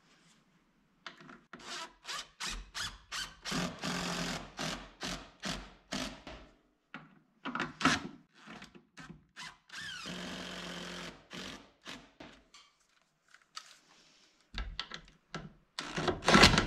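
Cordless drill and impact driver driving screws into a wooden attic-ladder frame, in many short trigger bursts. A steadier run of the motor comes about ten seconds in, and a louder burst comes near the end.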